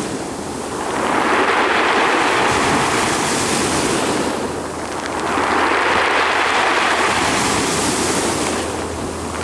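Sea waves breaking and washing in, the rush swelling and ebbing twice, about every four to five seconds.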